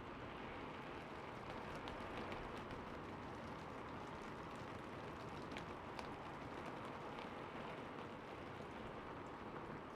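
Steady rain falling on a rooftop: an even hiss with scattered sharp drop ticks.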